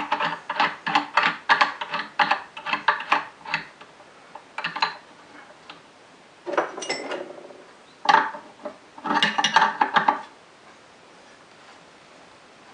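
Metal clicking and clinking as a steel drawbar and a wrench are worked against a grinder's spindle and its nut: a quick run of clicks, about four a second, over the first few seconds, then a few scattered clinks and scrapes, stopping about ten seconds in.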